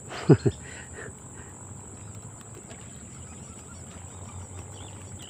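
Steady high-pitched drone of insects such as crickets over a faint low hum, with a short falling call about a quarter second in and a few faint chirps just after.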